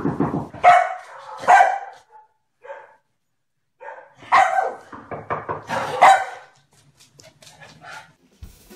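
Dog barking: two barks about a second in, a pause, then a quick run of about six barks.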